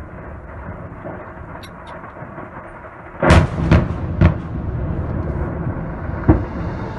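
Stored ammunition detonating: a continuous low rumble, then a loud blast a little over three seconds in, quickly followed by two more bangs and a weaker one near the end.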